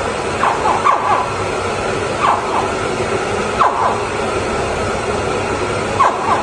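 Water gushing from a hose into a shallow enclosure, splashing steadily over a rock and the tank floor, with short falling squeaks several times.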